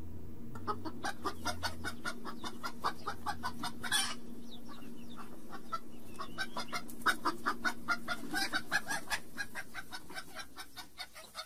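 Chicken clucking in quick repeated clucks, with one longer call about four seconds in, fading out near the end.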